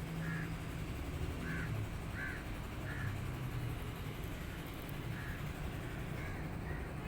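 A small kitten giving short, high mews, about eight in a row, one every half second to second, while it eats.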